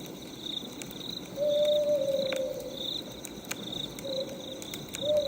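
Night ambience: an owl hooting, one long hoot about a second and a half in and shorter ones near the end, over crickets chirping about twice a second. Faint sharp crackles of a wood fire.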